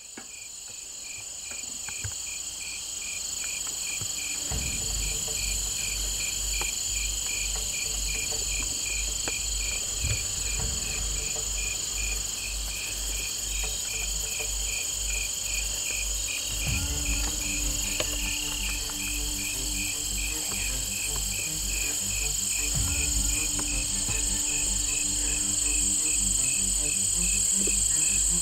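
Dusk chorus of crickets and other insects, a steady high trilling with a fast even pulse. Underneath, a low pulsing beat comes in a few seconds in and sustained low chords join about halfway through, like a suspense music track.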